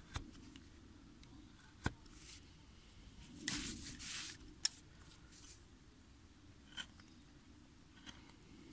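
Hand carving gouge working a wooden board: a few sharp isolated clicks as cuts pop chips free, with a couple of brief scraping sounds around the middle.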